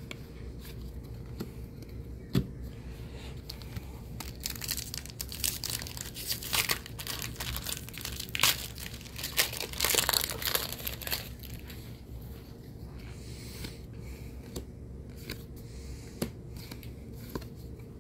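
Foil wrapper of a trading-card booster pack being torn open and crinkled: a run of crackling rips and rustles, mostly between about four and eleven seconds in.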